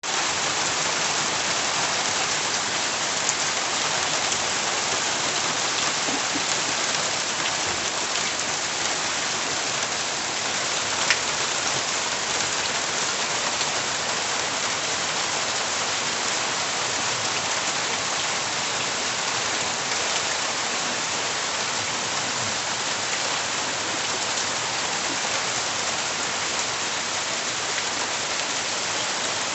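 Steady heavy rain falling, a dense even hiss with scattered drop ticks on nearby surfaces.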